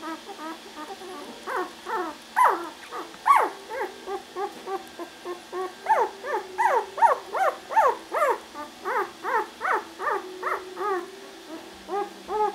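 Very young puppies whimpering and squeaking: a run of short, high cries, each rising then falling in pitch, several a second, busiest from about halfway through.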